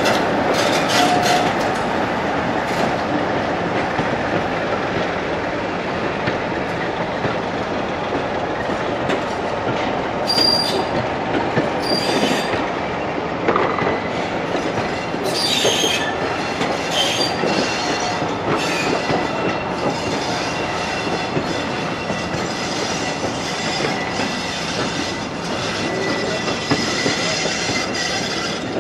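Passenger coaches rolling past at close range, their wheels clicking now and then over rail joints and giving a thin, steady squeal on the rails that grows clearer from about halfway through.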